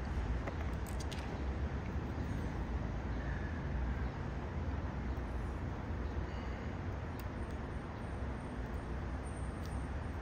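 Steady low background rumble, with a few faint light clicks about a second in.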